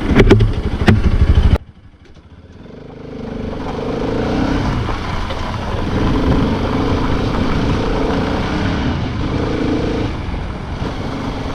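Motorcycle running on the road with wind rush. The sound cuts off abruptly about a second and a half in, then fades back up and holds steady.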